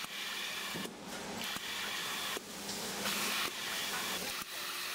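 Mectec air-blow label applicator on a bagging conveyor running, hissing in stretches of about a second as compressed air blows labels onto passing bags, over a steady machine hum.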